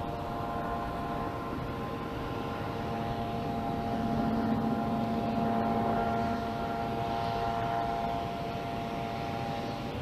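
Steady engine drone with a hum of several held tones over a wash of noise, growing a little louder around the middle.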